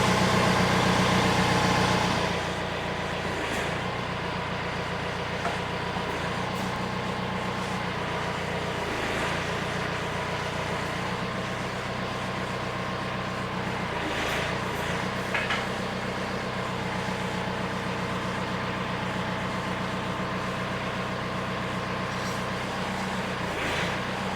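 Tractor engine that drives a Woods TSG50 PTO stump grinder, just started: it runs faster for about two seconds, then settles to a steady idle, with a few light clicks.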